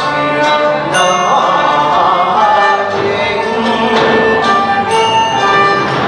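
Cantonese opera song (yuequ) performed live: a woman's singing voice over a traditional Chinese instrumental ensemble, with plucked strings among the accompaniment.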